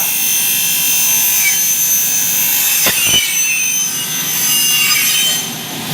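Double-head aluminium cutting saw with 450 mm blades cutting through an aluminium profile: a loud, steady high-pitched sawing whine. There is a sharp knock about three seconds in, and the sound eases near the end.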